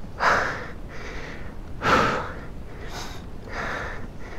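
A dirt-bike rider breathing hard, about four heavy breaths, the two loudest near the start and about two seconds in: he is winded and exhausted from the ride.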